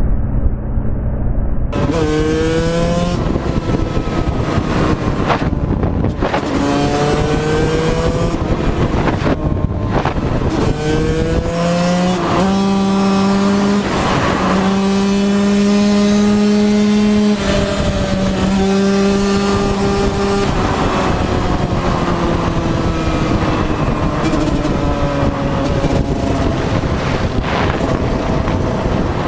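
Dirt bike engine accelerating hard up through the gears. The pitch climbs and drops back at each shift several times, holds a steady high note for a few seconds, then slowly falls as the throttle eases. Wind rushes over the microphone throughout.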